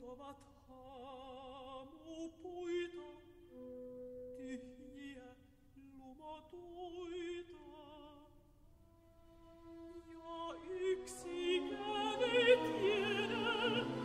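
Mezzo-soprano singing with vibrato over a soft orchestral accompaniment of held notes. About ten seconds in, the orchestra swells and grows louder under the voice.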